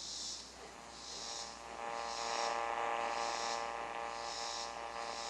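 Hallicrafters SX-100 shortwave receiver's speaker swelling up with a buzzing hum from about half a second in, louder by two seconds in, as the previously silent AM band 1 starts giving audio. A faint high hiss pulses about once a second throughout.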